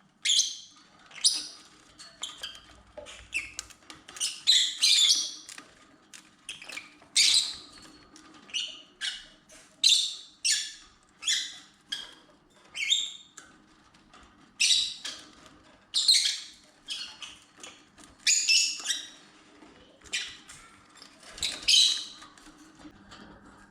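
Lovebirds giving short, shrill chirps over and over, about one or more each second.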